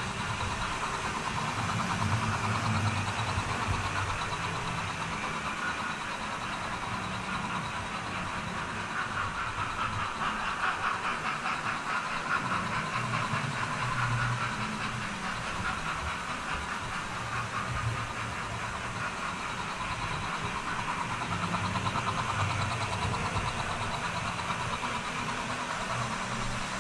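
Model GWR steam locomotives and coaches running around a layout: a steady motor hum with a fast clatter of wheels on the track, swelling louder several times as trains pass close by.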